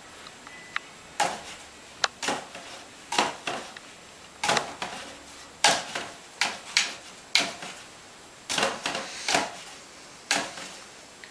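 A wooden handle propped in a plastic bin clacks and rattles against it as a kitten bats it with its paws: about twenty sharp knocks, often in quick pairs, half a second to a second apart.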